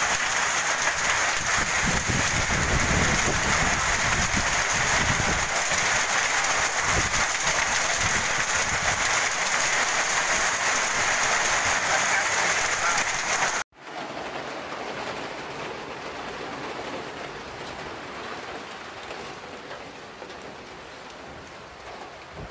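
Heavy storm rain, a loud dense steady hiss, breaking off abruptly about fourteen seconds in to lighter, quieter steady rain.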